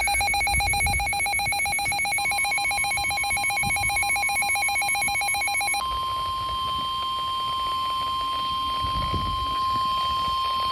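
A weather alert radio's alarm beeping in a fast, trilling pulse. About six seconds in the beeping stops, leaving the steady single-pitch NOAA Weather Radio warning alarm tone sounding alone, which signals an incoming weather warning broadcast.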